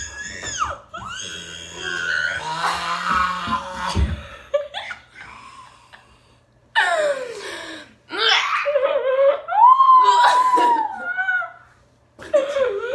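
Two teenage girls laughing loudly and uncontrollably, with high squealing laughs that come in fits separated by short breathless pauses.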